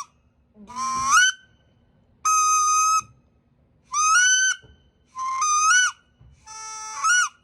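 Duck Commander Woody wood duck call blown on its second sound setting: five drawn-out, squeaky whistled notes, about one every second and a half, several bending up in pitch at the end.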